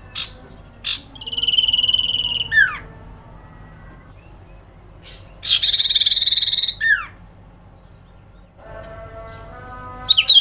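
Sirpu (cipoh, common iora) calling: a few short chip notes, then two rapid trilled phrases about four seconds apart, each ending in a falling slur, and a quick run of repeated notes beginning near the end.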